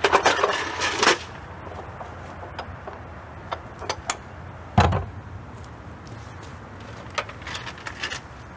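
Clattering and knocking of a jackhammer and a metal hand truck being handled, with a heavy thump just under halfway through as the hammer is set down, then a few lighter clicks and rattles near the end.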